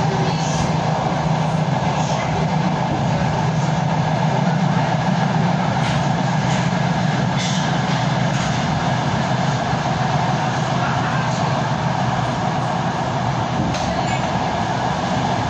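Steady rumble and running noise of a moving train, heard from inside the passenger car, with a few faint clicks along the way.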